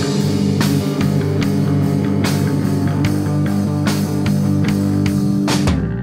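Rock band playing live: electric guitar, electric bass and drum kit with cymbal crashes in an instrumental passage. The band breaks off for a moment near the end.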